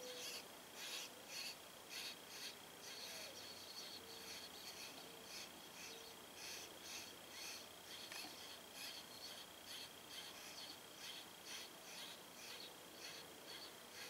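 Faint, rapid high chirps repeating about three times a second: the begging calls of baby common grackles gaping to be fed by an adult. A steady faint high whine runs underneath.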